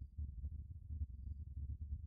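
Faint low background rumble with no bird call.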